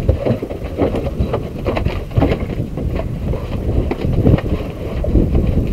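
Low, steady rumble of wind and boat noise on open water, broken by scattered short knocks and taps on the boat.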